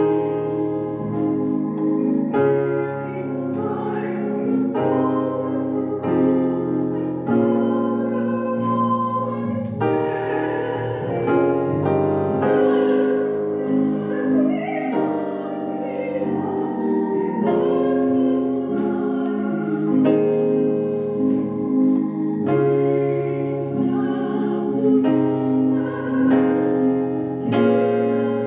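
Yamaha portable electronic keyboard played in a piano voice: chords and a melody, with a new chord struck about every one to two seconds.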